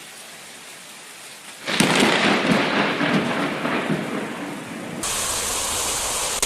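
Thunderstorm: steady rain hiss, then about two seconds in a sudden loud thunderclap from a nearby lightning strike that rumbles on and fades over about three seconds. Near the end, steady heavy rain.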